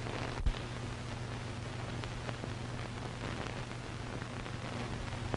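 Steady hiss and low hum of an old optical film soundtrack, with a single sharp pop about half a second in.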